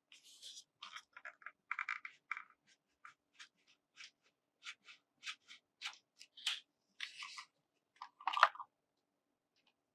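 Handling noises from a bike helmet and its packaging being unboxed: a run of short crinkles, rustles, scrapes and light clicks, the loudest about eight and a half seconds in.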